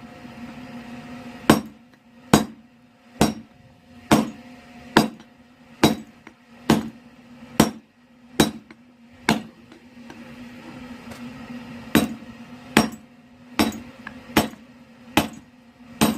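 Hand hammer blows on hot steel rebar against an anvil, drawing down the neck of an axe, at a steady pace of a little over one blow a second. The blows stop for about two and a half seconds in the middle, then start again, with a steady low hum underneath.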